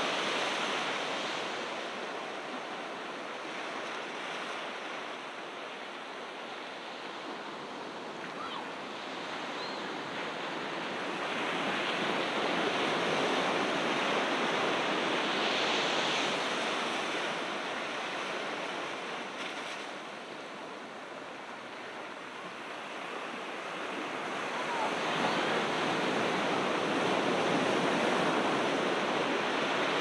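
Ocean surf washing onto the beach: a steady rush that swells and eases in slow waves, louder about halfway through and again near the end.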